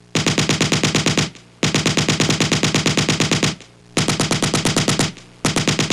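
Machine-gun fire: rapid shots at about ten a second in bursts a second or two long, three bursts and the start of a fourth near the end, each cut off sharply.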